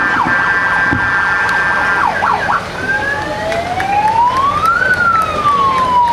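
Emergency vehicle siren. It holds a steady horn-like tone for about two seconds, gives a quick warble, then goes into a wail that rises for about two seconds to a peak about five seconds in and falls off slowly.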